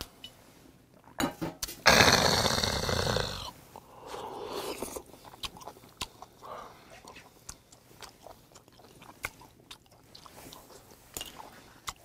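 A loud, breathy exhale after a swig of soju straight from the bottle, then chewing on grilled oysters with many small sharp clicks.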